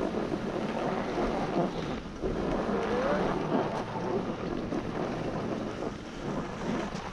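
Skis sliding and scraping over groomed snow at speed, a steady rough hiss that swells and eases with the turns, mixed with wind rushing over the camera's microphone.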